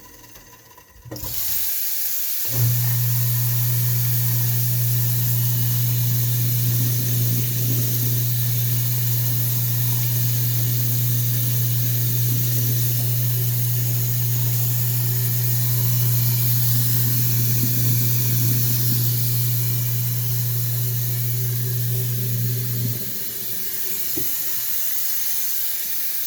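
Kitchen sink garbage disposal switched on with the tap running: its motor gives a loud, steady low hum that the owner finds noisy, then shuts off near the end while the water keeps running.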